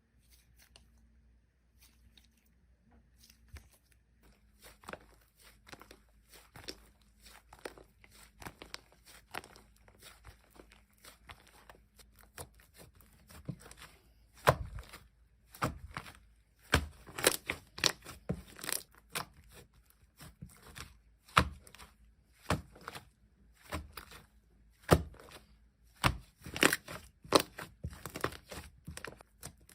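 Slime being worked by hand, giving irregular sticky pops and crackles, faint at first and louder from about halfway through.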